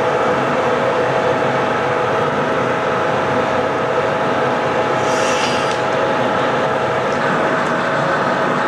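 Steady, loud roar of glass-studio equipment, with a constant hum through it. A brief hiss comes about five seconds in.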